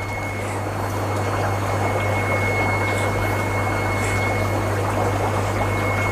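Steady mains hum of an aquarium air pump with the constant rushing bubble of aeration in the fish tanks.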